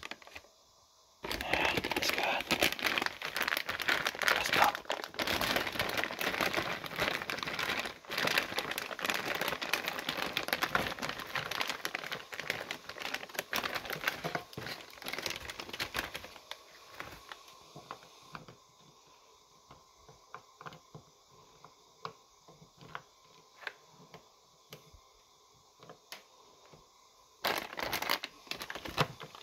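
Plastic bag of frozen tater tots crinkling loudly as it is handled and tipped, with scattered clicks of the frozen tots dropping onto a plate. The crinkling stops about halfway through and starts again briefly near the end.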